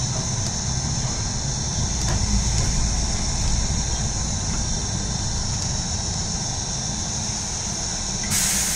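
Mercedes-Benz Citaro G articulated diesel bus heard from inside while driving: a steady low engine and road rumble under a constant high-pitched hiss. Near the end a sudden loud rush of air hiss starts.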